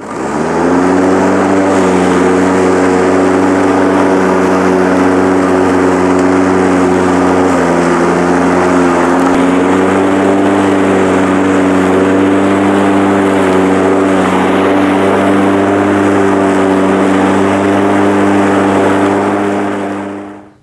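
AL-KO Classic 3.82 SE electric lawn mower, its freshly sharpened blade refitted, switched on and mowing grass. The motor whine rises to speed within about a second, then runs steady, with a slight dip in pitch about seven and a half seconds in, and fades out near the end.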